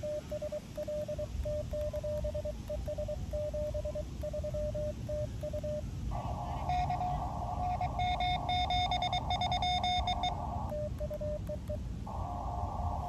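Morse code on an Elecraft KX2 transceiver on 20 metres. The keyed sidetone beeps out dots and dashes as the operator sends with the paddle. About six seconds in, the other station's reply comes through the receiver as a slightly higher keyed tone over a band of hiss. A short burst of sending follows, and then receiver hiss again near the end.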